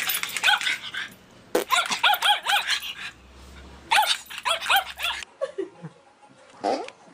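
White puppy yipping in three quick bursts of short, high-pitched barks. About five seconds in, a French bulldog makes a few lower whines that fall in pitch.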